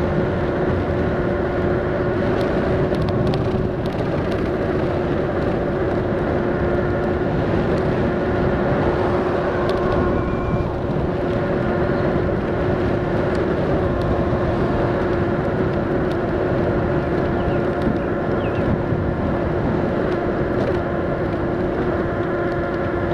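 HappyRun F18 Pro electric motorbike cruising at a steady speed: a constant hum holding one pitch, under a steady rush of wind on the microphone.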